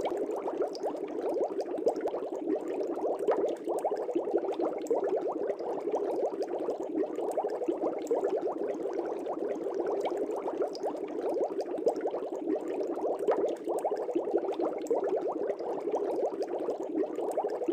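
Aquarium air bubbles rising and breaking at the surface of a fish tank: a steady, dense bubbling made of many rapid little pops.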